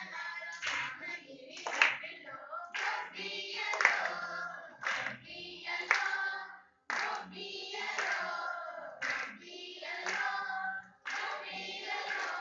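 A group of women singing a Telugu folk song together, clapping their hands in time roughly once a second.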